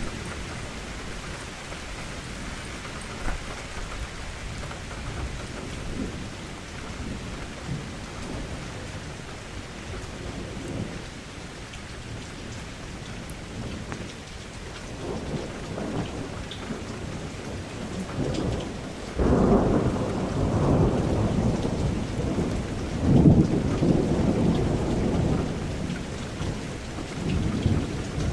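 Steady rain against a window, with rolls of thunder rumbling in about halfway through and growing loudest in the last third.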